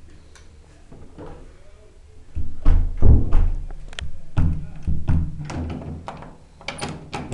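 Camera handling noise: irregular loud thumps and clicks of the camera body being knocked and rubbed while the lens is covered. It starts a little over two seconds in.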